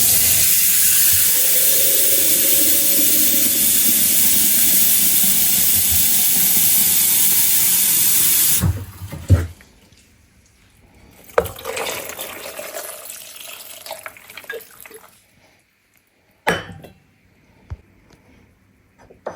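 Water pouring steadily into a pot of dried herbs, filling it, and stopping abruptly about eight and a half seconds in. Then a knock, a few quieter handling sounds and a sharp click.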